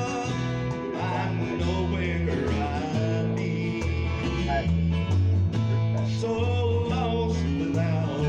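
Background country music with plucked guitar over a bass line that changes note about twice a second.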